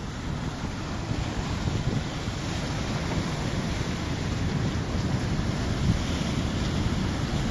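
Sea surf washing and breaking over rock ledges, with wind buffeting the microphone as a low rumble.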